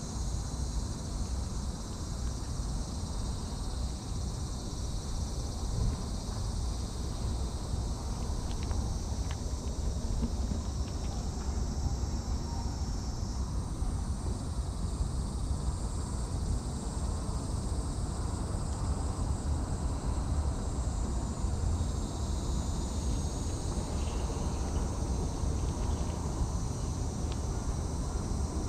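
A steady, high-pitched chorus of insects, with a low rumble underneath and a few faint clicks.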